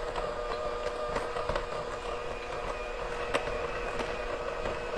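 Electric hand mixer running steadily at one speed, its beaters creaming butter and sugar in a glass bowl. A few sharp clicks come as the beaters knock against the glass.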